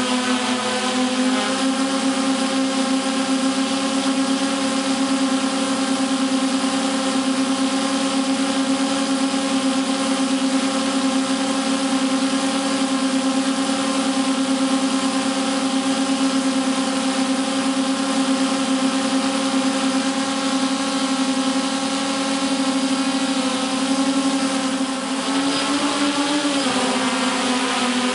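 Electric motors and propellers of a radio-controlled multirotor drone, recorded on the craft itself: a loud, steady buzzing hum with a strong low tone. Its pitch wavers near the end.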